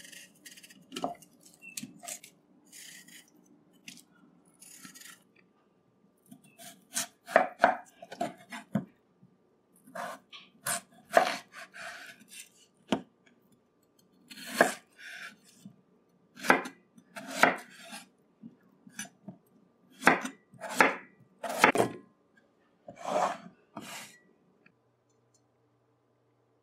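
Kitchen knife cutting peeled potatoes into chunks on a wooden cutting board: a series of separate, irregularly spaced chops, some in quick pairs, each blade stroke knocking on the wood. It is preceded by faint scraping from peeling a potato with a small knife in the first few seconds.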